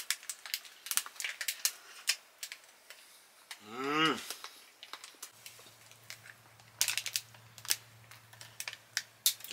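Crinkling and clicking of a clear plastic snack wrapper being handled, mixed with crunchy bites and chewing of a chocolate-coated snack, with a short rising "mmm" of enjoyment about four seconds in. A low steady hum starts a little after five seconds.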